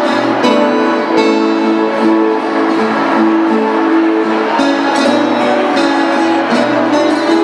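Ensemble of violas caipiras, the ten-string Brazilian folk guitar, with an acoustic guitar, strumming and plucking a tune together.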